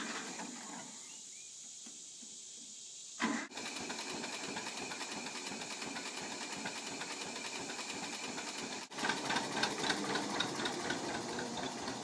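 John Deere 530 tractor's two-cylinder engine running with a rapid, even beat. It comes in suddenly about three seconds in, after a stretch of faint hiss.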